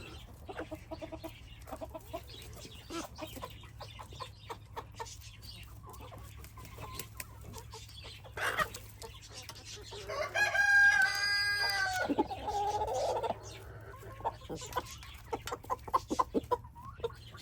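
A flock of chickens clucking softly over a scatter of short pecking clicks as they feed. About ten seconds in, a rooster crows once, loud and drawn out over about three seconds.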